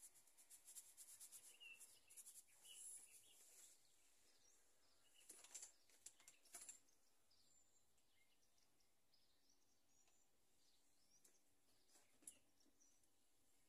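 Near silence, with a faint rapid rustling ticking for the first few seconds as a bag of scenery grit is shaken out over the diorama. A few faint handling clicks follow about five to seven seconds in, and there is one more tick near the end.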